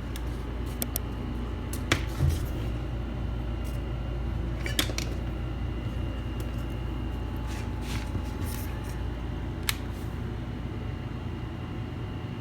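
A few short, sharp clicks and light taps, one duller knock about two seconds in, from handling a MacBook Air and connecting its charger, over a steady low background hum.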